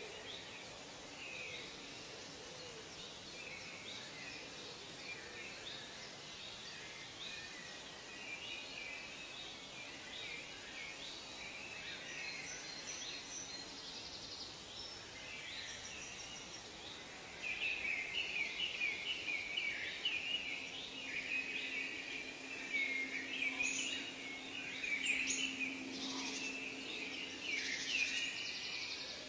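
Tropical forest ambience: many birds chirping and calling over one another, growing louder and busier a little over halfway through. A low steady hum sits underneath for several seconds near the end.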